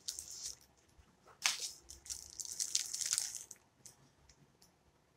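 Plastic snack-cake wrapper crinkling as a cake roll is unwrapped and handled, in irregular crackles that die away after about three and a half seconds.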